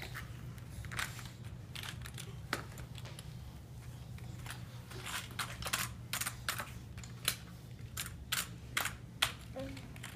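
A computer keyboard's plastic keys clacking irregularly as a baby's hands bang and press on them. The clicks come thicker in the second half.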